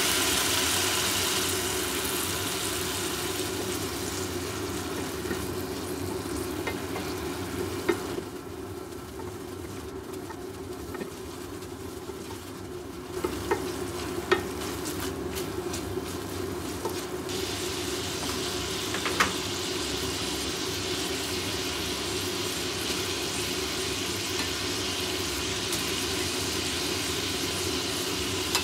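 Bacon, garlic and chilli frying in oil in a ceramic-coated frying pan, sizzling loudest at the start as the saved pasta cooking water hits the hot oil, then settling to a steady simmering sizzle. A few light clicks of nylon tongs against the pan as the contents are stirred.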